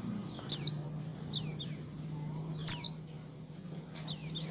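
Caged white-eye (pleci) giving short, sharp calls, each one sliding down in pitch: six notes, heard singly and in pairs. These are the 'ngecal' calls a white-eye makes before it breaks into full song. A faint steady low hum runs underneath.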